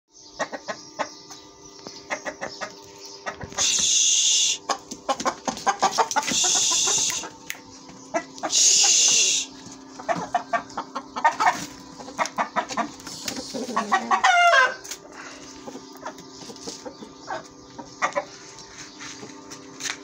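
A flock of buff bantam chickens clucking and cackling in quick short calls, with a longer wavering call about two-thirds of the way through. Three loud hiss-like bursts, each about a second long, stand out above the clucking in the first half.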